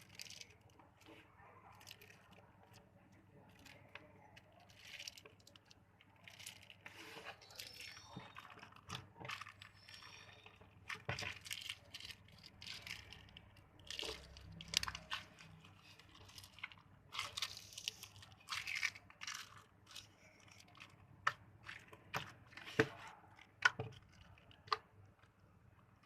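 Slime mixed with crinkly candy wrappers being squeezed and pressed by hand: irregular crackling crinkles and soft squishes, with sharper snapping clicks in the last few seconds.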